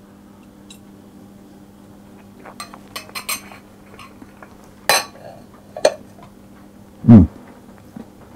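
Cutlery clinking and scraping against a pan as a mouthful of kedgeree is taken from it: a quick cluster of small clicks, then two sharper clinks. A brief low hum from the taster's voice comes near the end, over a steady low hum in the room.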